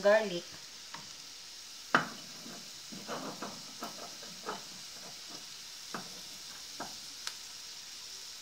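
Diced onion and garlic sizzling gently in hot oil in a frying pan, a steady soft hiss. Scattered light knocks and scrapes of kitchen utensils and a small bowl, the sharpest about two seconds in.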